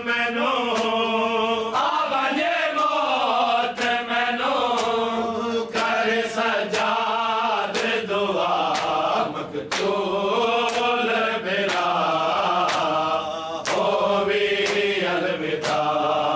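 A group of men chanting a noha, a Shia lament, in chorus, with a steady beat of sharp slaps roughly once a second from chest-beating (matam).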